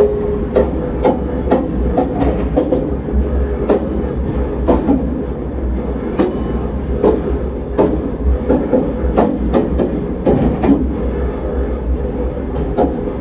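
Rail vehicle moving: a steady low rumble with frequent irregular clanks and knocks, over a faint steady tone.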